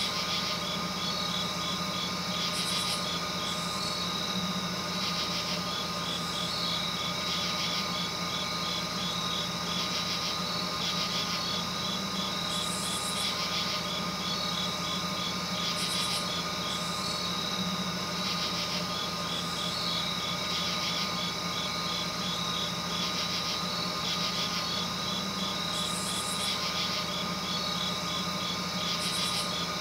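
Steady droning ambience of hum and hiss with rapid, regular chirp-like pulsing in bursts, the whole pattern repeating in a loop about every 13 seconds.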